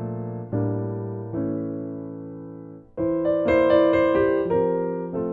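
Background piano music: slow chords that fade away after each strike, then a run of quicker notes about three seconds in.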